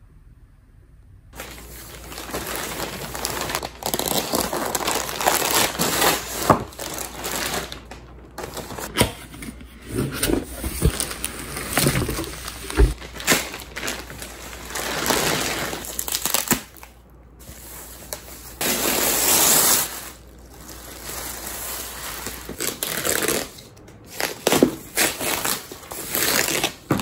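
Plastic bag and packaging crinkling and rustling as a handbag is unwrapped by hand, in uneven handfuls with a few brief pauses.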